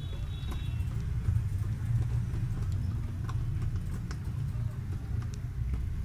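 Fingers pressing the bubbles of a silicone pop-it fidget toy, giving soft, irregular pops over a steady low rumble.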